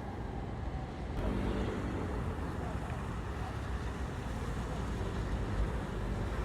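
Canal tour boat's engine running with a steady low rumble under way.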